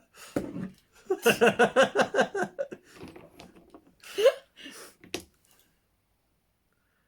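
A person laughing in a quick run of pitched "ha" pulses, followed by a short rising vocal exclamation and a single light click.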